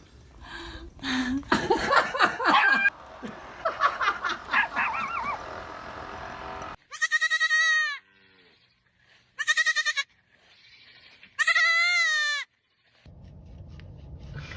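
Three loud, high, quavering bleats, each about a second long, spaced a couple of seconds apart, after several seconds of mixed background noise.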